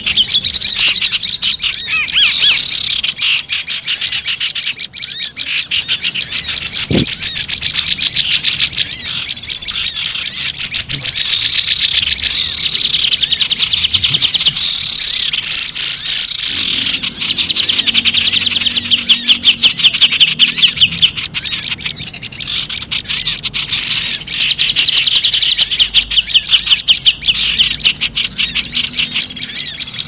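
Bird-lure (pikat) recording of many small birds calling noisily all at once: a dense, unbroken stream of high chirps and twitters.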